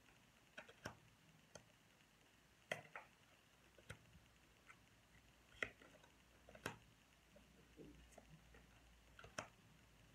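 Faint, irregular clicks and taps of tarot cards being handled and laid down, about a dozen light strikes spread over ten seconds against near silence.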